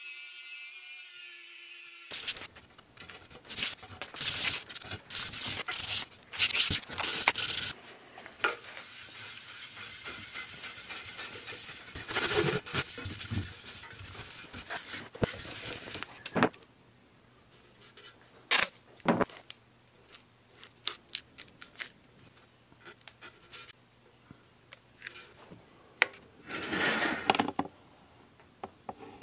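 A rotary tool with a small wire brush whines steadily against the brass label of an antique copper fire extinguisher for about two seconds. It is followed by a long stretch of hand scrubbing on the copper body in loud, irregular rubbing and scraping strokes, then sparser clicks and handling. Near the end comes a burst of rustling as paper and tape are handled to mask the body.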